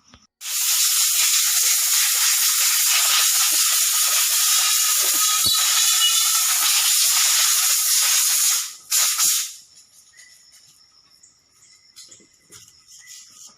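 A pressurised jet hissing loudly and steadily for about eight seconds, then cutting off, with a second short blast a moment later, followed by faint clicks.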